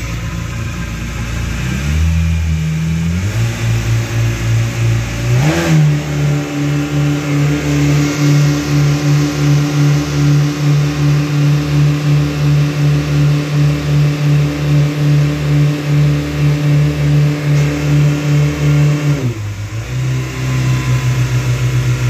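Yamaha 242 jet boat's engines running under way: the engine note steps up over the first few seconds, with a brief rising and falling sweep about six seconds in. It then holds steady at speed with a regular throb, and near the end the revs drop and the note settles lower.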